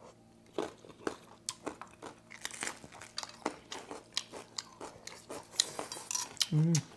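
Close-up crunching and chewing of raw vegetables, carrot sticks and lettuce wraps: irregular crisp bites and chews all through. A short hum from one of the eaters comes near the end.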